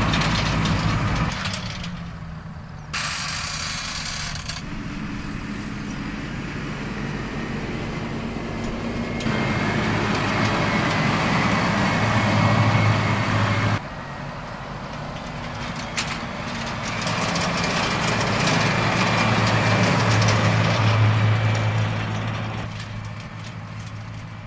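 Valtra N174 Direct tractor's engine running steadily under load as the tractor works the field with its cultivators. The sound swells as the tractor comes close twice, around the middle and again near the end, with abrupt changes in between where the shots change.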